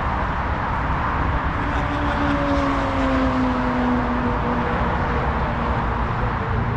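Steady rumble of nearby freeway traffic, with a droning tone that slowly falls in pitch a couple of seconds in, as a vehicle passes.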